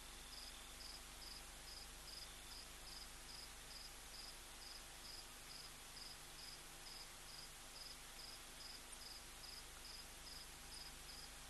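A cricket chirping faintly and steadily, about two chirps a second, over a low hiss.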